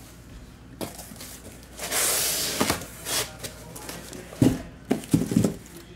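A cardboard shipping case of trading-card boxes being opened and handled. A scraping rustle of cardboard lasts about half a second about two seconds in, then a few short knocks near the end.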